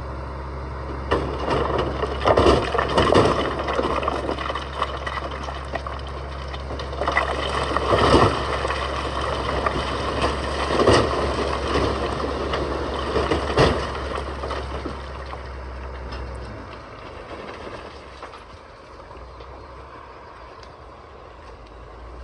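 A heavy machine's engine running steadily under load, with loud crashes and rumbling of rock at irregular intervals, about six of them in the first fourteen seconds. The engine sound drops away about sixteen seconds in.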